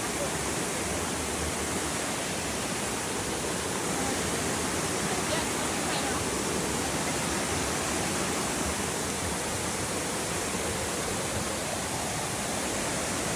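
Steady rushing hiss of a rocky mountain stream, water pouring over boulders in small cascades.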